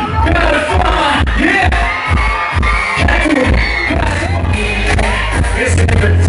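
Loud dance music over a large sound system in a hall, with a pounding bass beat and a sung vocal line, and some crowd shouting.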